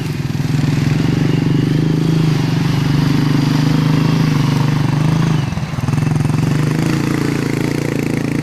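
Polaris Sportsman 850 XP ATV's parallel-twin engine running steadily under throttle, with a brief dip in revs about five and a half seconds in before it picks up again.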